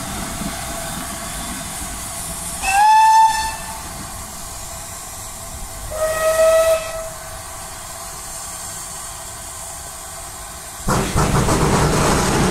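Two GWR steam locomotive whistles sound one after the other over a steady hiss of steam. The first is higher and rises slightly into its note for about a second. The second is lower and a little shorter, about three seconds later. About eleven seconds in, a loud rush of steam and exhaust begins as the double-headed engines start away.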